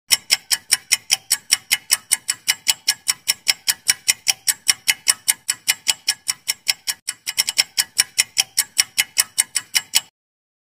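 Countdown-timer clock-ticking sound effect: fast, even ticks, about five a second, with a brief stumble about seven seconds in, stopping abruptly about ten seconds in.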